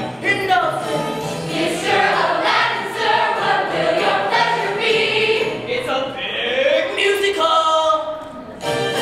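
Youth cast singing in chorus over music, a musical-theatre ensemble number, with a short pause near the end before the singing comes back in.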